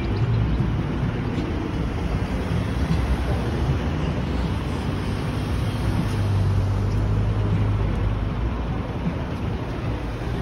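Outdoor city ambience dominated by the steady low rumble of motor traffic, with a stronger engine hum a little past the middle.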